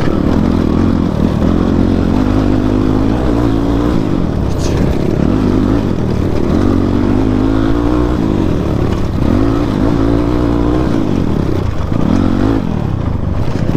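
Motorcycle engine under way, its pitch rising and falling repeatedly as the throttle is opened and eased off over rough ground.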